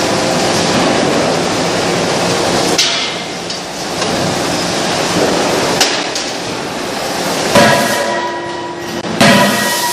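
Steady loud running of a cross wedge rolling mill working a red-hot billet. Near the end come two heavy blows of a 31.5 kJ CNC hydraulic die forging hammer, about a second and a half apart, each ringing after the strike.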